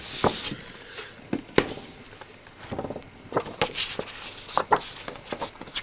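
LP record sleeves being handled: a series of taps, rustles and scrapes of cardboard and paper, with a sharp click about one and a half seconds in.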